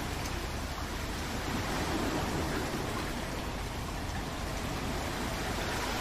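Steady heavy rain: an even, unbroken hiss of rainfall with no single drops or thunder standing out.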